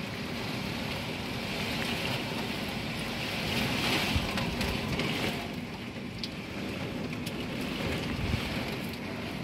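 Typhoon wind and heavy rain making a steady rushing noise that swells about four seconds in and eases a little after, with wind buffeting the microphone.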